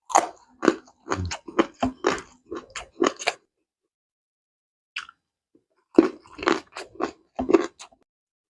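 Close-miked crunching and chewing of raw jengkol (dogfruit): a run of crisp crunches for the first three seconds or so, a pause of about two seconds, then another run of crunchy bites.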